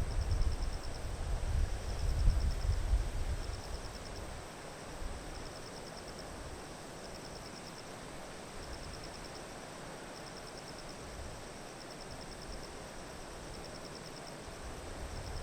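Grass insects chirping in short pulsed trains about once a second, with a steady high insect drone, over the even hiss of the river. Wind buffets the microphone with a low rumble for the first few seconds, then eases.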